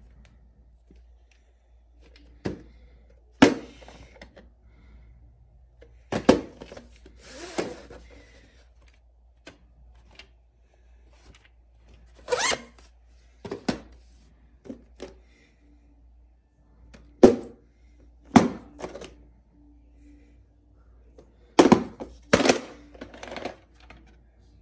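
Hard plastic VHS tape cases and a videocassette being handled: about a dozen separate sharp clicks and knocks with quiet gaps between them, and a short rustle about seven seconds in.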